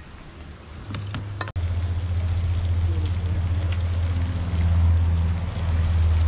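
A few light clicks, then a loud, steady low rumble that starts abruptly about a second and a half in and carries on.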